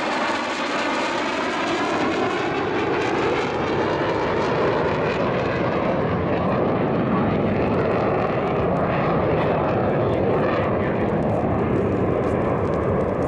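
Jet noise from two F-15 Eagle fighters' twin turbofan engines in flight: a steady, loud rush with a sweeping, phasing whoosh in the first few seconds, its high hiss thinning as the jets draw away.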